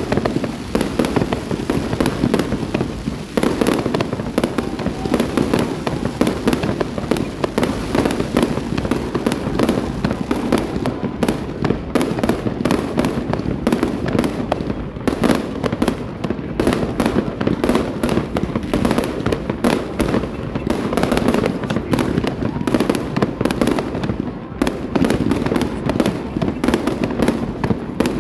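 Fireworks salute going off nonstop: a dense, unbroken barrage of bangs and crackles.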